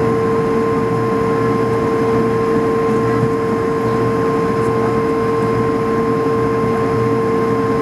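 Cabin noise of an Airbus A220-300 rolling slowly at low thrust: the steady whine of its Pratt & Whitney PW1500G geared turbofans, with two steady tones over a continuous rumble.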